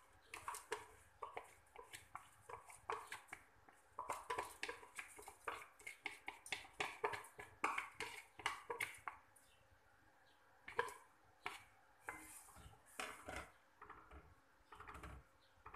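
Sticky rice being handled in an enamel pot of liquid: irregular rapid clicks, swishes and small knocks of grains, water and hand against the pot. Near the end a wooden spoon stirs the pot.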